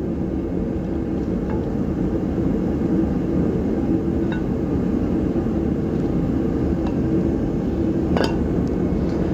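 Light metallic clinks from a new wheel hub being turned and handled inside a brake rotor, a sharper clink near the end, over a steady low mechanical hum.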